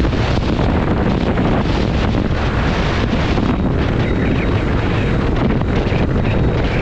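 Wind noise on an action camera's microphone on a moving motorcycle, loud and steady, with the TVS Apache RTR 160 4V's engine running underneath.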